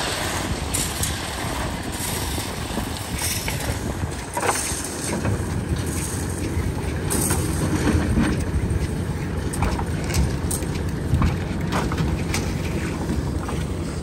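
Construction machinery engine running steadily with a low rumble, with scattered knocks and clatter from site work.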